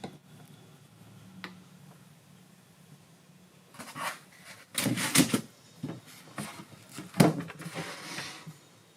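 Handling noise: a quick run of knocks, clicks and rustles, the sharpest strikes about five and seven seconds in, ending in a stretch of rustling.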